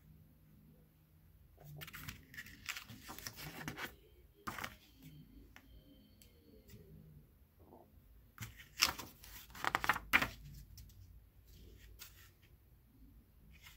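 Paper CD booklet being unfolded and its pages turned by hand: irregular bursts of paper rustling and crackling, loudest in two sharp bursts about two-thirds of the way through.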